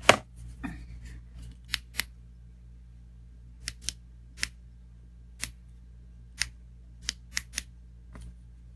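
A scattered series of sharp clicks and knocks, about a dozen, the loudest right at the start, as a metal tactical LED flashlight and its setup are handled and the light is switched on.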